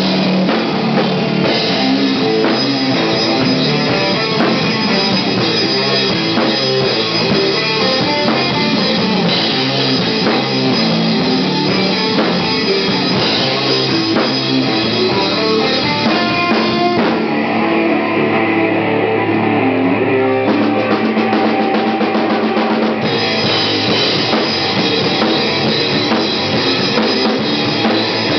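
Stoner rock band playing live, with electric guitars and a drum kit. About 17 seconds in the cymbals drop away for a few seconds, leaving the guitars, before the full band crashes back in.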